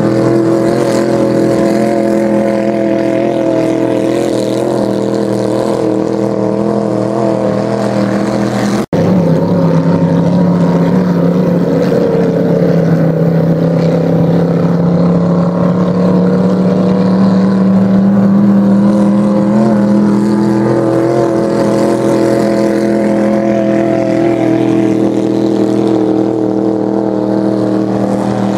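Vintage race boats' big-block engines with open exhaust running hard at speed, a loud steady engine drone with a slight waver. It breaks off for an instant about nine seconds in, then comes back with a pitch that climbs slowly through the middle.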